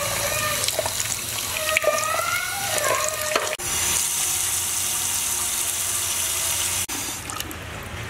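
Tap water running: first over aloe vera gel being rinsed by hand in a ceramic bowl, with wavering tones over the first few seconds. Then, after an abrupt cut, a steady hissing stream pours into a metal pot, quieter in the last second.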